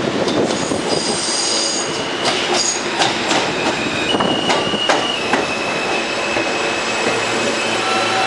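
R160A-1 subway train with Alstom ONIX propulsion pulling into an elevated station and braking to a stop: high wheel squeal on the rails early on, a run of clicks over the rail joints, then a steady high whine from the traction motors during the last few seconds.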